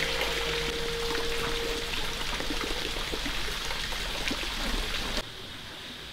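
Steady rush of water with many small patters and splashes, dropping abruptly to a quieter hiss a little after five seconds in. A held background music note fades out about two seconds in.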